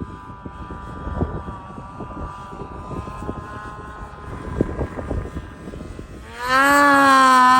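Snowmobile engine running steadily at part throttle, then about six seconds in revving up hard to a loud, steady high pitch that holds to the end, with a few knocks from the ride underneath.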